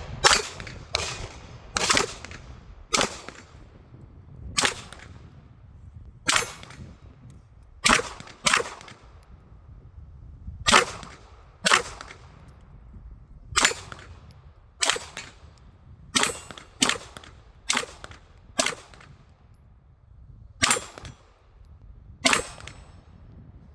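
Canik TP9 9mm pistol being fired: about twenty single shots at an unhurried, uneven pace, roughly one every second or two.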